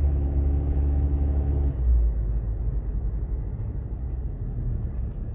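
Car engine and road noise heard from inside the moving car: a steady low engine drone that drops away about two seconds in, leaving a low rumble.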